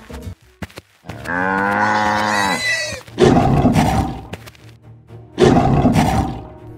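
Cartoon lion roaring twice, each roar about a second long, after a drawn-out pitched animal call. A few notes of background music at the start.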